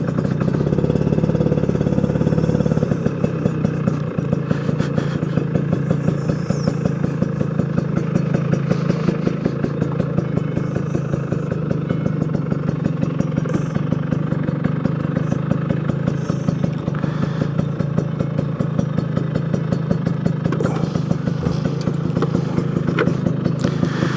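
Two-stroke scooter engine idling steadily, with an even, rapid pulsing beat.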